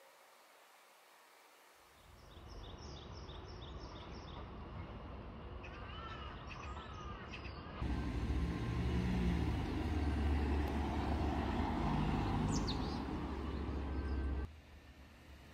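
Outdoor street ambience: small birds chirping, first a quick run of about six short high chirps, then a few lower calls. About halfway through, a louder low rumble of passing traffic comes in and cuts off shortly before the end.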